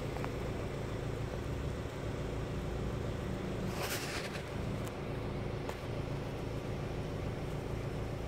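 Steady low mechanical hum, with a brief hiss about four seconds in.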